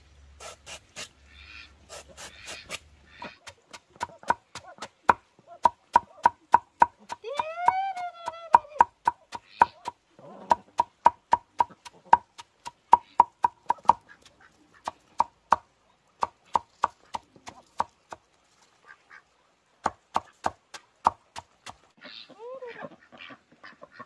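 Steady run of sharp chopping strikes, about three a second, each with a brief ring, pausing for a moment near the end. A drawn-out call rises and falls about a third of the way in, and a short one follows near the end.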